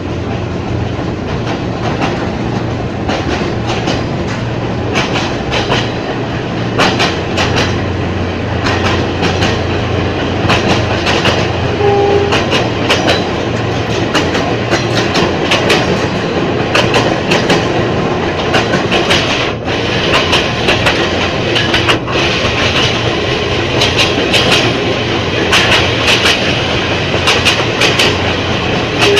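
Ex-JR 203 series electric multiple unit running on the line, its wheels clicking over rail joints above a steady low hum. The clicks come thicker and a hiss grows stronger in the later part.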